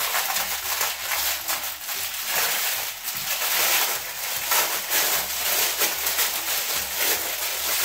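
A plastic packaging bag crinkling and rustling as a toy is unwrapped by hand, a steady crackly rustle full of small clicks.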